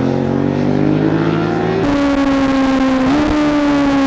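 Ducati 749S V-twin sportbike engine pulling hard, its note rising steadily as the bike accelerates. About halfway through the sound cuts abruptly to a steady high-revving engine note that climbs briefly and then slowly falls.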